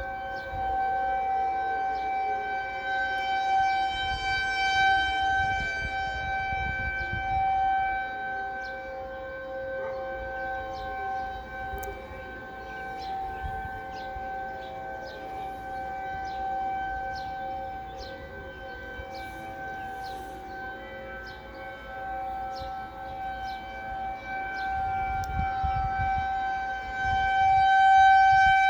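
Several outdoor warning sirens, T-128 sirens and a 2001 DC siren, sounding together during a test: a chord of steady tones that swells and fades in loudness.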